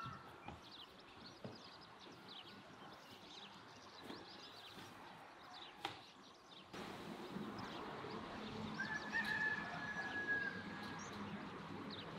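Farmyard ambience: small birds chirping throughout, and a rooster crowing once in the second half. The background grows abruptly louder about halfway in.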